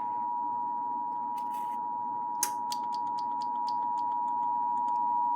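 NOAA Weather Radio warning alarm tone, a single steady 1050 Hz tone heard over faint receiver hiss. It signals that a warning broadcast follows. A sharp click comes about two and a half seconds in, with a short run of faint crackles around it.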